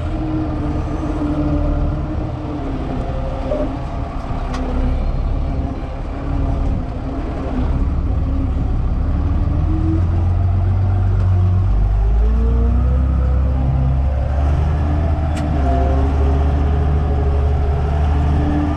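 Case tractor's diesel engine running under load, heard inside the cab while it pulls a seed drill across the field. The engine note wavers in pitch, then runs lower and heavier from about twelve seconds in.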